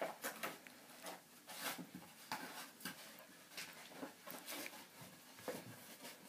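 A Wheaten Terrier puppy rustling about in paper: faint, irregular rustles, crinkles and scratches as it worries a paper scrap and steps over newspaper.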